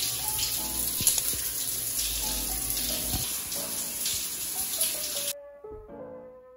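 Shower head spraying water in a steady hiss, stopping abruptly about five seconds in, with soft piano music underneath.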